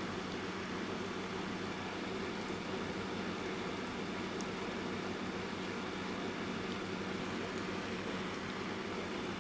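Electric fan running steadily, a constant rushing of air with a low hum, layered with soft rain as a continuous noise for sleep.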